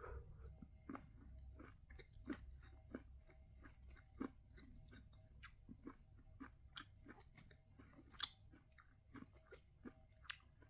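Faint chewing of sweet corn: many small, irregular crunches and wet mouth clicks, several a second, with a slightly louder crunch a few times.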